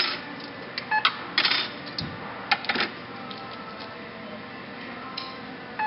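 Checkout counter sounds as hardware is rung up: several sharp knocks and clatters of items being handled, with a short beep about a second in, over a faint steady store background.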